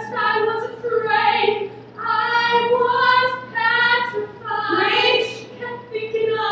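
A woman singing a musical-theatre song unaccompanied, in long held notes.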